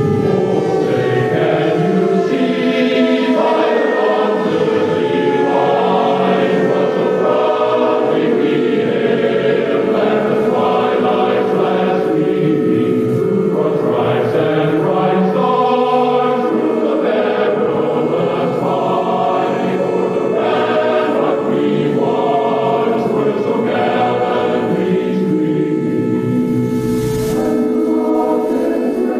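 Choral music, voices singing over a steady held tone. A falling siren tone fades out in the first moment.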